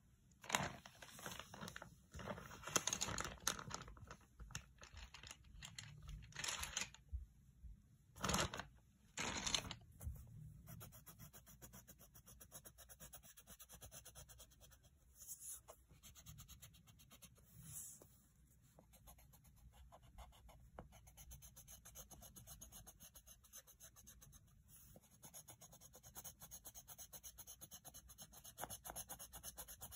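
Pencil scratching on lined notebook paper while a dog is drawn, with several louder rustles of the paper being handled in the first ten seconds, then steady faint scratching of the strokes.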